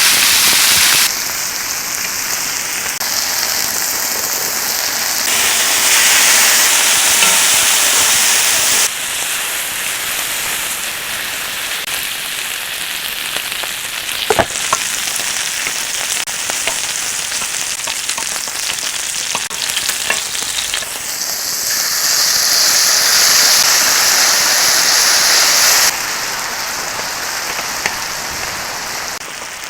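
Pork belly sizzling on a hot grill pan: a steady hiss that changes level abruptly several times, with a single sharp tick about halfway through.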